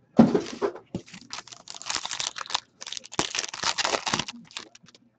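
Foil trading-card pack being torn open, its wrapper crinkling in a run of irregular crackles that die away near the end.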